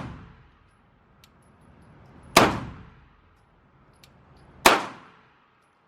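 Two gunshots about two seconds apart, each with a sharp crack and a short echoing tail off the walls of an indoor firing range.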